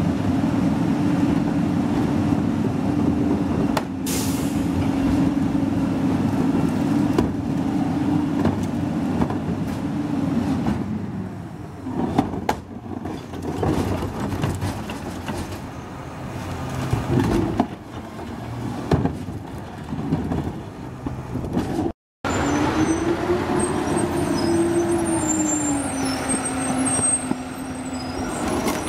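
CCC LET2 Pakmor rear-loader garbage truck working a collection stop: its engine runs at a steady raised speed while the semi-automatic cart tipper and hydraulics operate, with scattered knocks and clanks of carts and metal. Near the end the engine note swells and falls back.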